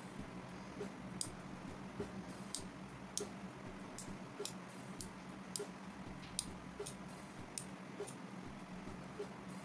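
Rotary tap switch on a toroid tuning coil being turned step by step, its detents clicking about a dozen times at irregular intervals as it moves through the coil taps. A faint steady hum runs underneath.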